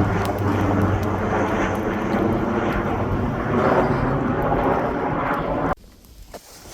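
Two-stroke Arctic Cat snowmobile engine running at speed on the trail. It cuts off suddenly near the end, leaving a quiet background with a few faint clicks.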